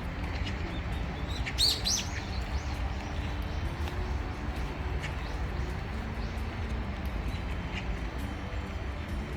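Small birds chirping, with a quick cluster of high chirps about a second and a half in and a few scattered chirps after, over a steady low background rumble.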